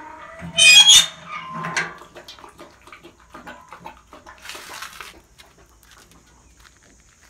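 Steel slide bolt on a barred dog-cage door squealing as it is worked, one loud squeal about a second in and a shorter one soon after, followed by faint clicks and rattles.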